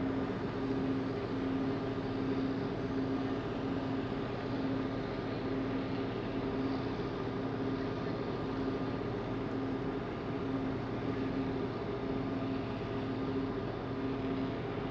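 Passenger ferry's engines droning steadily, heard on board: a low hum that swells and fades about once a second, over a constant rush of engine and water noise.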